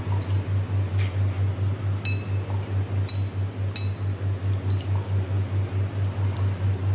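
A glass stirring rod clinks against the side of a glass beaker, three ringing clinks about two to four seconds in. Under them, the loudest sound is a steady low hum that pulses about four times a second.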